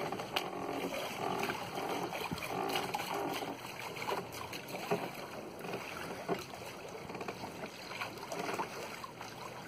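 Water splashing and sloshing along the hull of a small open sailing boat under way.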